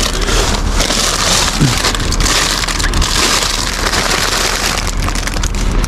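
Plastic crisp packets and bin bags being rummaged through in a dumpster, giving a loud, continuous crackling and rustling.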